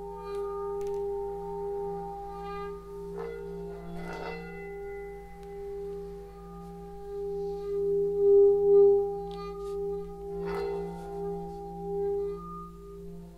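Resonant metal instruments of a sound bath ringing on: several sustained tones layered over a low hum, the strongest one pulsing slowly as it beats and swelling loudest a little past the middle. A few light strikes add fresh high ringing about three, four and ten seconds in.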